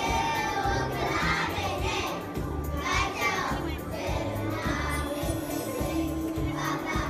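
A group of children singing together over music with a steady bass beat.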